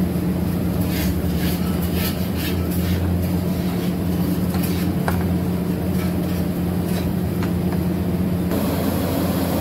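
A steady low machine hum, like an idling engine, with faint light clicks scattered through it.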